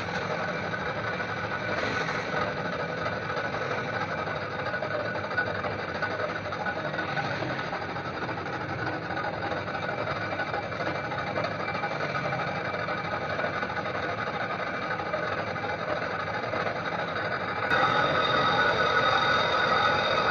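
A machine running steadily, with several held tones over a constant mechanical noise; it gets suddenly louder near the end.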